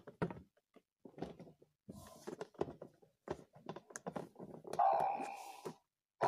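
Toy packaging being handled: a run of irregular taps, knocks and rustles, then a held pitched sound about five seconds in and again right at the end.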